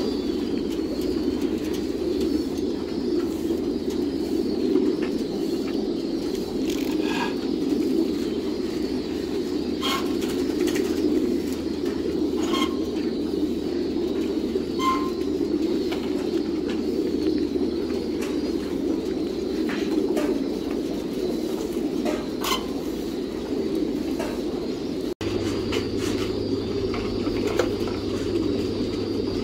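A large flock of caged pigeons cooing all at once, a dense, steady murmur. Scattered short clicks and chirps sound over it.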